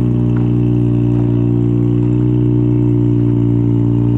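1983 Mazda RX-7's 12A rotary engine running at a steady speed, its exhaust loud through a pre-silencer, the pitch holding level.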